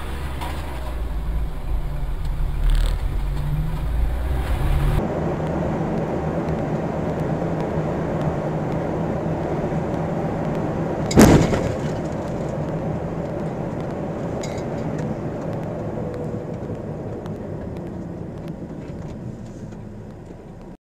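Vehicle noise heard from inside a moving vehicle. A low engine rumble runs for about five seconds, then steady road noise at highway speed follows. About eleven seconds in there is one sharp, loud bang, and the noise fades away near the end.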